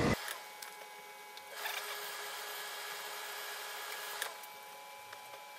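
Steam iron pressing a nylon jacket: a loud hiss cuts off right at the start, then the iron slides and rubs over the fabric in a soft hiss from about a second and a half in until about four seconds, over a faint steady hum.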